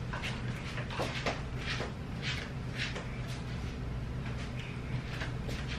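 Light, irregular clicks and rustles of things being handled, several a second at times, over a steady low hum.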